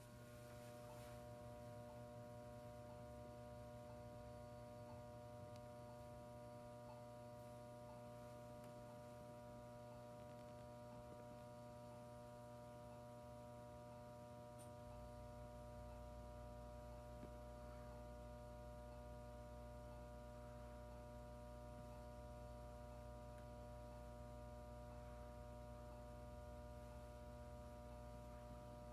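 Steady electrical hum of powered traffic-signal equipment, several steady tones at once, with a faint regular tick somewhat more than once a second. A deeper hum joins about halfway through.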